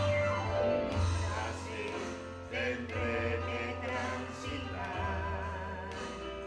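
A man and a woman singing a Spanish-language song together over an instrumental backing with sustained bass notes.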